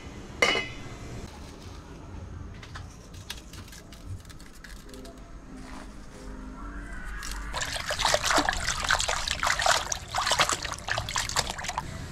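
A metal pot lid clinks about half a second in. Later, water in an aluminium pot bubbles at a rolling boil, a loud dense crackle of popping bubbles over the last few seconds.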